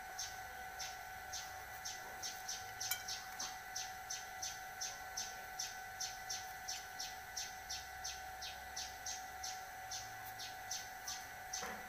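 A short high chirp repeating steadily, about two to three times a second, over a steady high-pitched hum.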